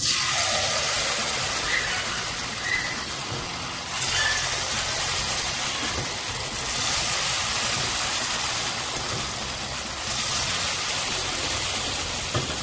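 Batter-coated jackfruit bulbs deep-frying in hot oil: a loud, steady sizzling and bubbling that starts suddenly as the first piece goes into the oil.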